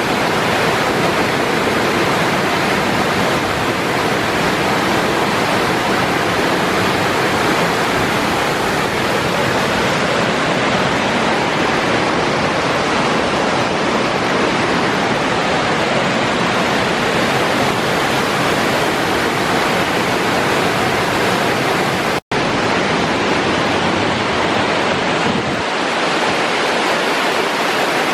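Waterfall of about 30 to 35 feet, heard close up from its base: a loud, steady rush of falling water. The sound cuts out for an instant about 22 seconds in.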